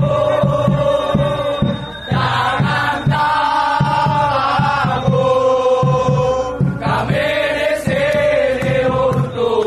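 Football supporters chanting together in long sung phrases, with a steady beat underneath and brief breaks between phrases.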